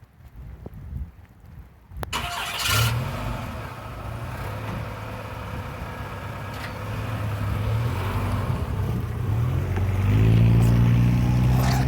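A vehicle engine comes in suddenly about two seconds in with a sharp click, then runs with a low hum that rises in pitch near the end as it revs up.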